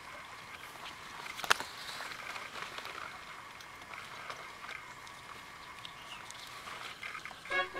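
Faint crinkling and rustling of dry, papery ground cherry husks being gathered by hand from the soil, with one sharp click about a second and a half in.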